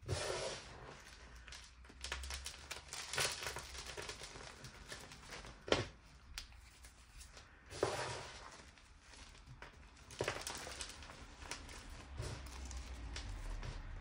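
Reformed gym chalk crunched and crumbled by hand: irregular dry crunching and crackling as fingers press and rub through chalk crumbs and powder. A sharp crack about six seconds in is the loudest moment.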